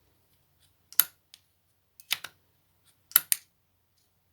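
Sharp mechanical clicks from a disassembled Mercedes-Benz W169 A-Class tailgate latch worked by hand: one about a second in, another a second later, and a quick pair near the end, as the latch catches and releases the way it is supposed to work.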